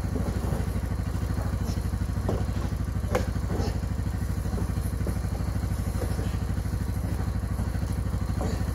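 A side-by-side UTV's engine idling steadily, with a few knocks and one sharper thud about three seconds in as the heavy boxed generator is pushed across the trailer.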